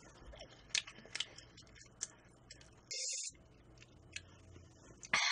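A few faint sharp clicks, a short high hiss about three seconds in, and a louder rustling burst at the very end.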